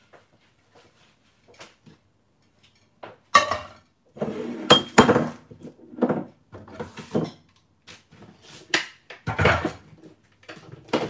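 Aluminium frying pan clanking and scraping against the cast-iron pan supports of a gas hob as it is set down and shifted into place: a run of knocks and clatters starting about three seconds in, the loudest with a short metallic ring.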